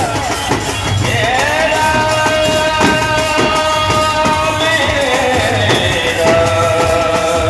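Indian street band music: a melody of long held notes with sliding pitch changes, over a pounding bass drum and clashing hand cymbals.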